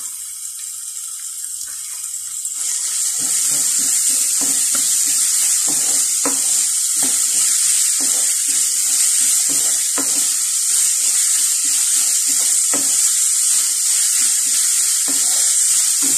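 Chopped onion, carrot and green beans sizzling in hot oil in a steel kadai, the sizzle getting louder about two and a half seconds in. A wooden spatula scrapes and knocks against the pan repeatedly as the vegetables are stirred.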